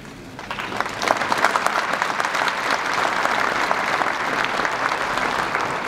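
Audience applause from many people clapping together. It swells during the first second, holds steady, and starts to ease off near the end.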